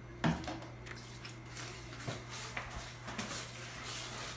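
A sharp knock about a quarter second in, then a cloth mop swishing in uneven strokes across a wet ceramic tile floor as it is washed.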